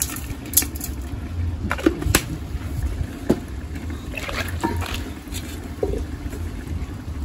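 Cooking sounds: a handful of light knocks and clinks of utensils on a pot, scattered irregularly, over a steady low rumble.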